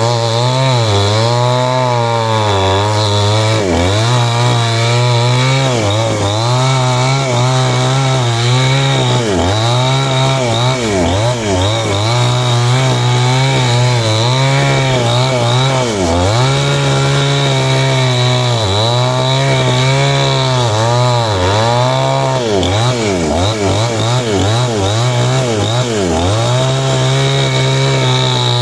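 Small petrol chainsaw running hard while cutting wood. Its engine note dips and recovers over and over as the chain bites into the cut under load.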